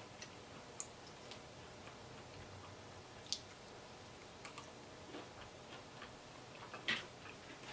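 Eating sounds at close range: a few faint, sharp clicks and smacks, scattered a second or more apart over quiet room tone, the loudest near the end.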